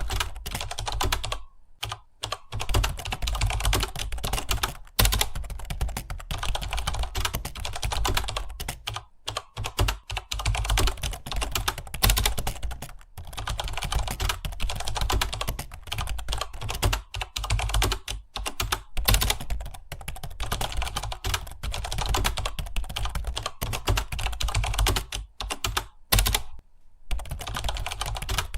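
Computer keyboard typing, a dense run of keystrokes with a couple of brief pauses, one about two seconds in and one near the end.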